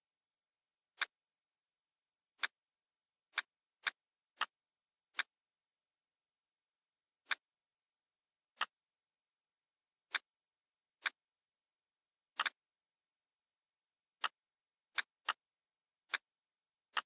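Computer mouse clicks: about sixteen single sharp clicks at irregular intervals, including a quick double click about twelve seconds in, with silence between.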